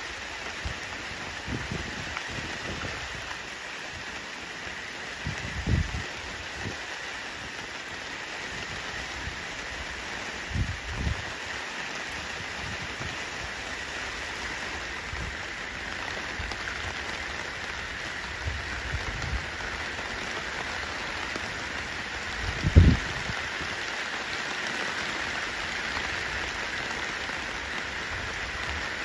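Steady rain falling on wet pavement, an even hiss. A few dull low thumps come through, the loudest about three-quarters of the way in.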